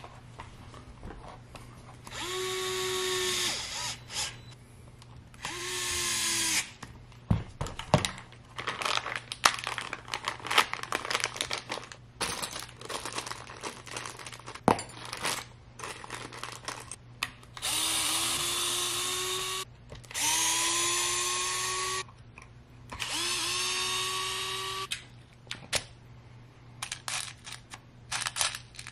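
Cordless electric screwdriver run in five short bursts of one to two seconds each, its motor whine rising as it spins up, working the screws of an RC car chassis. In between, small screws and parts click and rattle on the bench.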